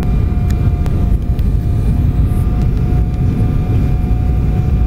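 Cabin noise inside an Embraer E190 on approach to landing: the steady low rumble of its turbofan engines and the airflow past the fuselage, with a thin steady tone riding above it.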